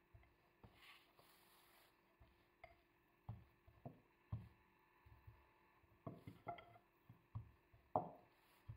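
Wooden rolling pin rolling out dough on a wooden board: faint, irregular soft knocks and thumps as the pin is rolled and set down, the loudest near the end.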